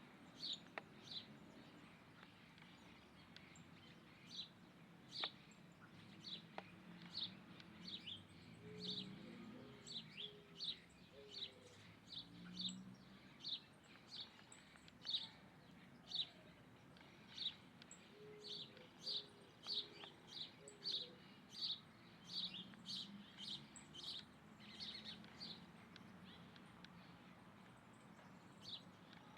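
Small birds chirping faintly: short high chirps repeated about once or twice a second. Some lower, patterned calls come in about a third of the way through and again past the halfway point.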